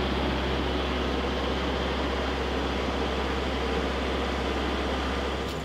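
Compact tractor engine running at a steady speed while the tractor drives slowly, a constant low hum.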